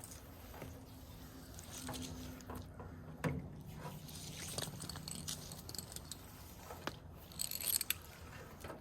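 Water hose being wound onto a hose reel: the hose scraping and rustling against the reel and the wraps beneath it, with scattered small clicks and knocks.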